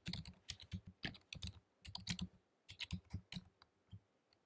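Typing on a computer keyboard: a quick, irregular run of key clicks that thins out and stops near the end.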